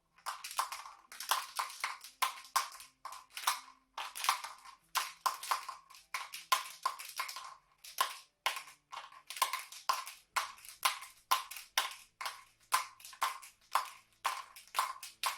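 A pill rattling inside a chewing-gum box, shaken to give a fast, uneven rhythm of sharp clicks: a foley imitation of a galloping horse.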